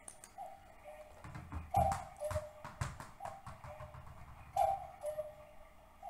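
A tick-tock pattern of short hollow knocks, a higher one followed by a lower one, repeating about every second and a half, with a cluster of low thumps and clicks about two seconds in.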